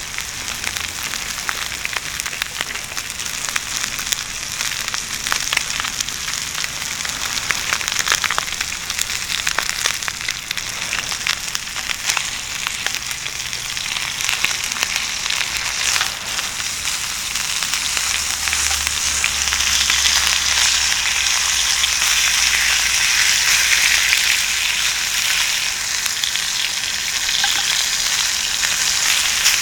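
Food sizzling in a hot pan over an open fire, a continuous hiss with scattered crackling pops, getting louder about two-thirds of the way through.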